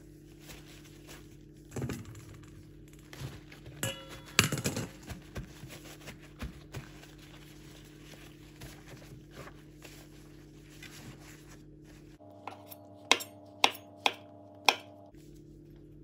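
Shiitake mushrooms set down on a wooden cutting board, with a scatter of soft knocks in the first few seconds. Near the end a kitchen knife slices through the mushrooms, making four sharp taps of the blade on the board about half a second apart. A steady low hum runs underneath.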